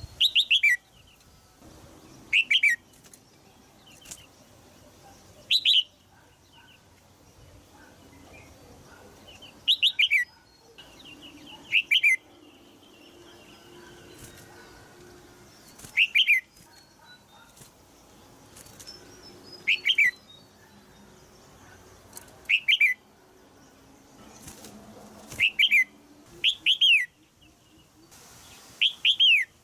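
Red-whiskered bulbul in a cage giving sharp 'jiak' calls, each a quick downward chirp, some doubled. They come about every two to four seconds, about eleven in all. These are the female's calls used to stir a young male into song.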